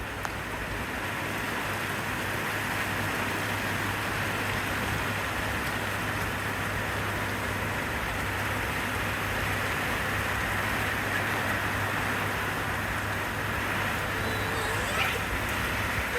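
Heavy rain falling, a steady even hiss with a low rumble underneath.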